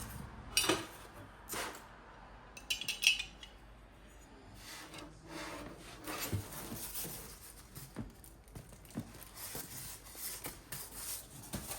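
Irregular rubbing and scraping of hard objects with scattered light clicks and knocks; the sharpest knock comes about three seconds in.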